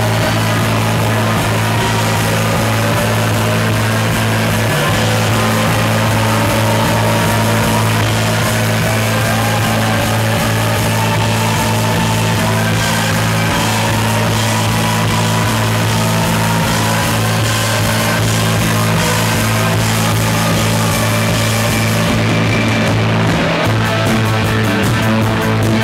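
Live rock band playing loud on electric guitar, bass and drums, with low notes held steady underneath and notes gliding up and down above them.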